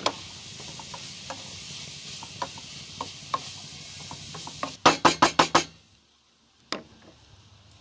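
Food sizzling in a frying pan on a portable butane stove while a wooden spatula stirs it with light scraping clicks. About five seconds in, a quick run of about six loud knocks, the spatula tapped against the pan, then the sizzle stops suddenly and one more click follows.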